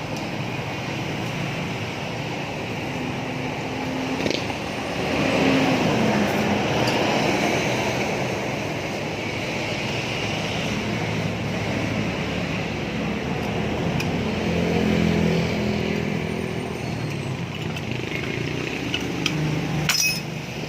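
Motor vehicle engines running and passing, swelling louder about five seconds in and again near the middle, with a few sharp metallic clicks.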